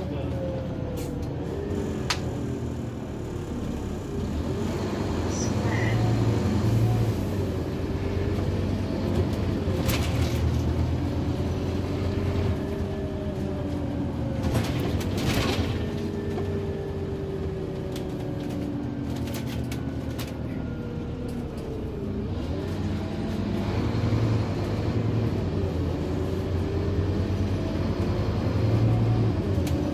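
Cabin sound of a Scania OmniCity bus under way: a steady low engine rumble with a whine that rises and falls repeatedly as the bus speeds up and slows down, plus scattered clicks and rattles.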